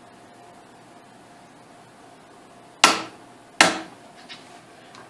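Click-type torque wrench giving two sharp clicks about three-quarters of a second apart as it breaks over, each with a short metallic ring: the AR-15 barrel nut has reached the 35 ft-lb set torque.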